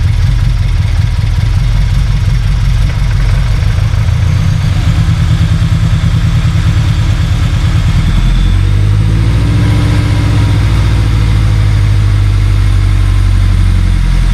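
Scion FR-S flat-four boxer engine with a new Tomei unequal-length header, idling just after its first start on the freshly installed engine, with a pulsing, uneven note. About eight and a half seconds in the idle rises and holds higher and steadier, then drops back right at the end.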